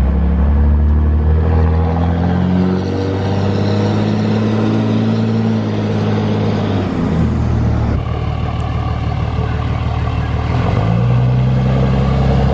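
2005 Dodge Ram 2500's 5.9-litre Cummins turbo-diesel pulling under acceleration, its pitch climbing for several seconds, dropping about seven seconds in as it shifts, then climbing again near the end.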